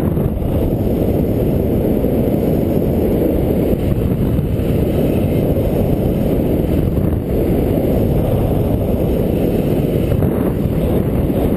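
Airflow buffeting the camera microphone of a paraglider in flight: a loud, steady low rushing.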